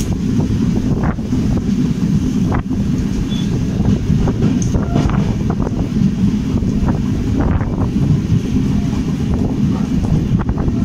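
Express train's sleeper coach running at speed over a river bridge, a steady heavy rumble with scattered short clatters, and wind buffeting the microphone at the open window.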